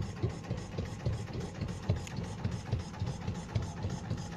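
4 hp Marna R1 single-cylinder inboard engine of a 21-foot wooden boat running steadily under way, heard on board as a slow, even low beat of several strokes a second.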